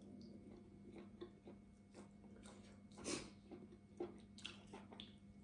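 Faint chewing and small mouth and finger noises of someone eating by hand, a few soft clicks scattered through, over a faint steady hum.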